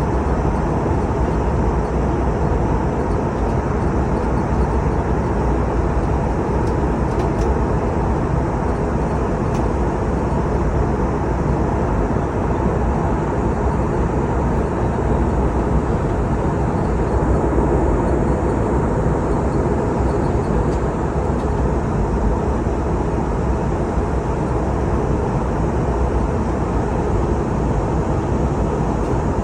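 Steady cabin noise of an airliner in flight: an even, unbroken roar that is heaviest in the low range and does not change.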